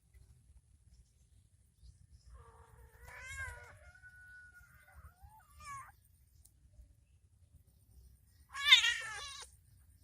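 A few short, wavering animal calls, the longest held briefly a little after four seconds and the loudest near the end.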